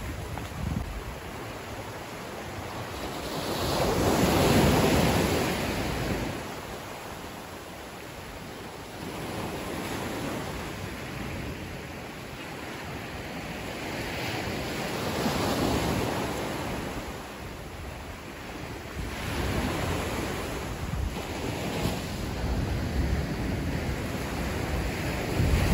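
Small waves washing up onto a sandy beach and over rocks, the surf swelling and fading every several seconds, with wind buffeting the microphone.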